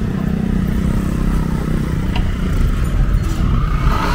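Motor vehicle engine running with a steady low hum, and a brief sharp click about two seconds in.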